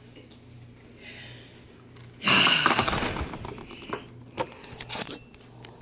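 Handling noise close to the microphone: a sudden loud rustling thump about two seconds in, then a string of knocks and clicks as the camera is grabbed and moved.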